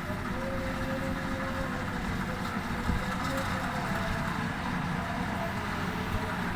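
A rice harvesting machine's engine running steadily, with a constant low rumble and a faint higher tone that comes and goes.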